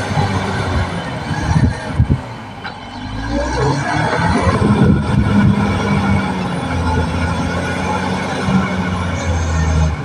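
Caterpillar D6R XL bulldozer's diesel engine running steadily, with knocks and clatter in the first couple of seconds. The engine eases off briefly about two and a half seconds in, then picks up again and holds.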